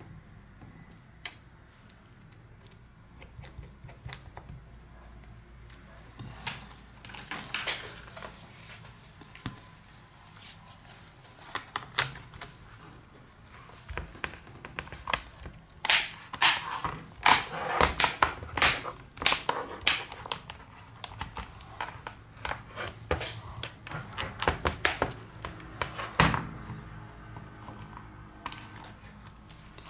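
Plastic back cover of a Lenovo tablet being pressed and snapped onto its frame: a run of sharp plastic clicks and knocks with handling rustle, densest and loudest in the second half as the clips catch.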